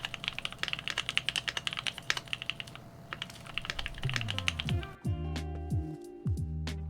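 Fast typing on a Keychron Q2 aluminium mechanical keyboard with lubed Gateron KS-3 Milky Yellow switches: a rapid run of key clacks. About four seconds in, the typing gives way to background music with a bass line and guitar.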